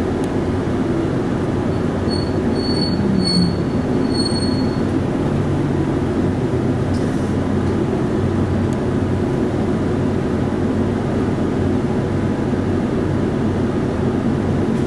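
Hino Blue Ribbon city bus heard from inside the passenger cabin: a steady diesel engine drone. About two seconds in there is a high brake squeal lasting a couple of seconds as the bus pulls up, after which the engine idles on.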